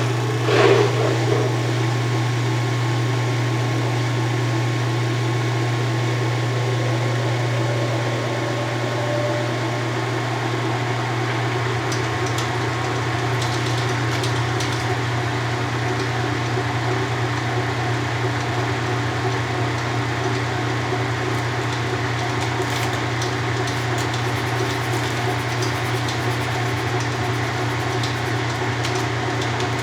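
1993 Kenmore 80 Series top-load washer running empty on a dry test, its motor and drivetrain giving a steady low hum that starts abruptly just at the outset.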